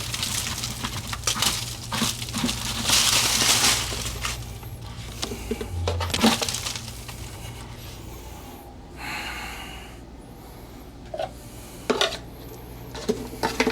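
Objects being handled and set down while clearing an indoor garden: scattered knocks and clatter, with a long rustle about three seconds in, over a low steady hum.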